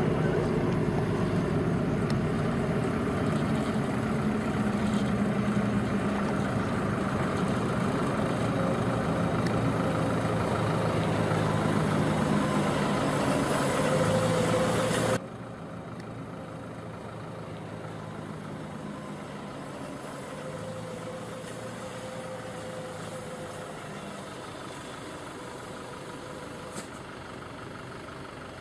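Heavy diesel engine of a heavy-haul truck running steadily while a multi-axle modular trailer rolls along. It cuts off abruptly about halfway through, giving way to a much quieter, steady engine hum.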